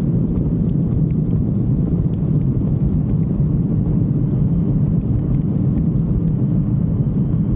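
Kawasaki Ultra 310LX jet ski under way, its supercharged four-cylinder engine running steadily with a low rumble.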